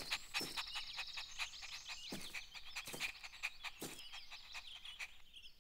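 Cartoon garden ambience of birds chirping, with a string of short yips from a cartoon puppy about once a second.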